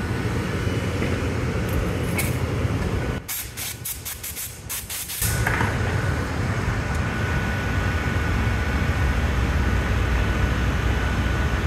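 Steady low roar of a glassblowing studio's gas-fired glory hole and shop fans. It drops out for about two seconds a little after three seconds in, under a quick run of sharp clicks, then comes back.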